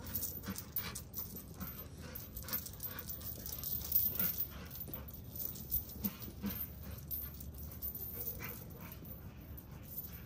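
Dogs at play, with many short clicks and rattles scattered throughout.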